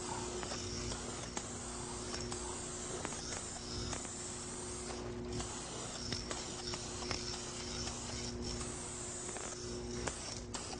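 Aerosol spray-paint can hissing steadily as paint is sprayed onto a car body panel, with short breaks between passes about five seconds in and near the end.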